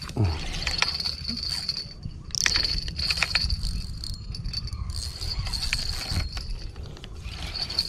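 A steady high-pitched insect chorus, dropping out briefly now and then. Scattered light clicks and knocks come from handling a fishing rod and spinning reel, the loudest about two and a half seconds in.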